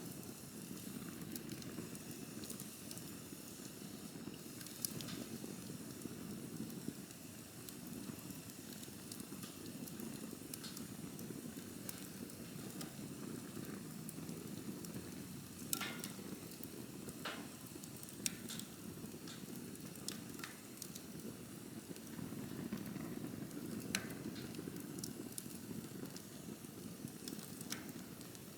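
Campfire burning: a steady low rush of flames with scattered sharp crackles and pops, the loudest pops about halfway through and again about two-thirds of the way through.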